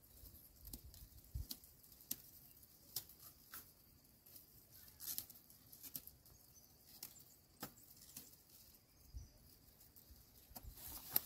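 Faint, scattered crackles and rustles of dry barley stalks being handled during hand picking, about a dozen short clicks spread irregularly.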